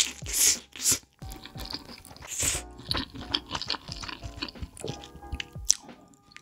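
Close-miked eating of spicy black ghost pepper instant noodles: loud wet slurps near the start and again about two and a half seconds in, with chewing between, over soft background music.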